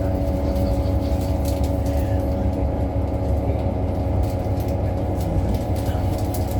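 2018 New Flyer XDE60 diesel-electric hybrid articulated bus running, heard from on board: a heavy low rumble with a steady hum of several tones and scattered rattles and clicks. The uploader says this bus makes a strange sound compared with other buses of the same model.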